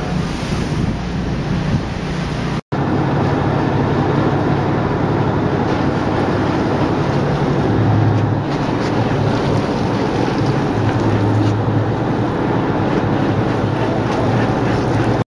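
Boat engine droning steadily while under way, with wind noise on the microphone and the rush of water. The sound cuts out for an instant about two and a half seconds in.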